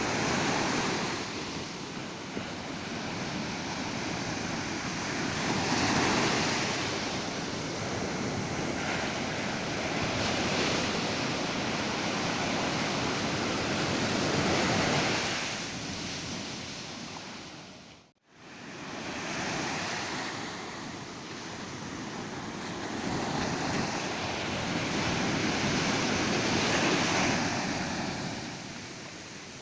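Ocean surf breaking on a beach, the wash of the waves swelling and ebbing every few seconds. The sound dips briefly to near silence about two-thirds of the way through, then returns.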